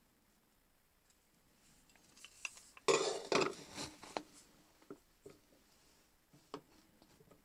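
Steel parts being set down and fitted together on a steel workbench: a clatter of metal on metal about three seconds in, then a few single light clinks.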